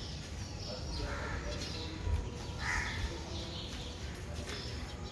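Birds chirping and calling over a steady low outdoor rumble, with one clearer call about halfway through.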